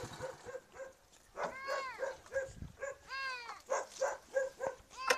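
A dog yelping three times, each drawn-out yelp rising and then falling in pitch, about a second and a half apart. Short, evenly repeated chirps sound between the yelps.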